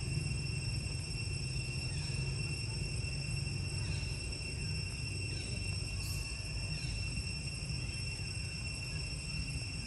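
Insects droning in a steady, unchanging high tone over a low background rumble, with a few faint short chirps now and then.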